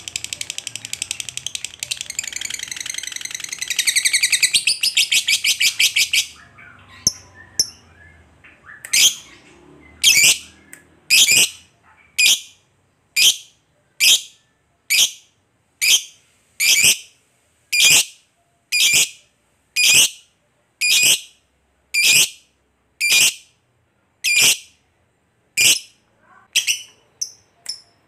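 Lovebird giving a long, rapid chattering trill (ngekek) for about six seconds. After a short pause it calls a string of sharp single chirps, about one a second, which come faster near the end.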